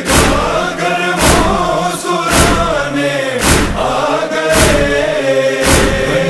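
Male voices chanting a sustained noha refrain in chorus, over a heavy beat that strikes about once a second.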